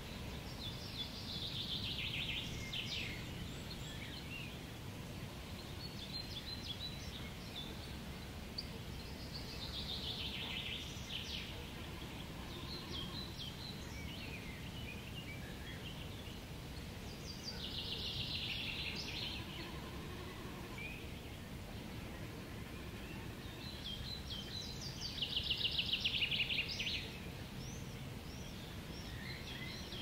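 A songbird repeating a short, fast trilled song that drops in pitch, four times at roughly eight-second intervals, with scattered chirps between. Steady wind rumbles underneath.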